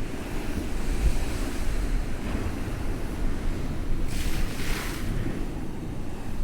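Storm waves breaking against a sea wall, with strong gusting wind buffeting the microphone. About four seconds in, a wave crashes with a rush of spray that lasts about a second.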